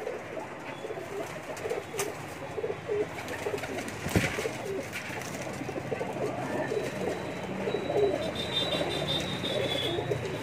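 A loft full of high flyer pigeons cooing, many overlapping low coos in a continuous chorus, with a single sharp knock about four seconds in.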